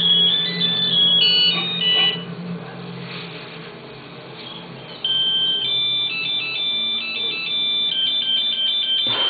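Mobile phone ringtone playing a melody of high electronic notes, in two rings: one at the start and a second starting suddenly about five seconds in.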